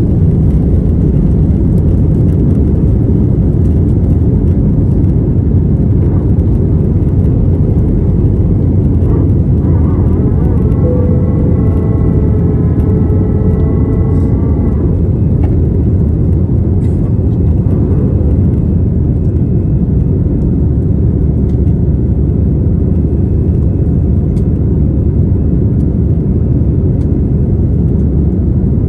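Airbus A320's jet engines at takeoff thrust, heard from inside the cabin: a loud, steady, deep roar through the end of the takeoff roll, liftoff and initial climb. A wavering higher tone sounds over it for a few seconds about ten seconds in.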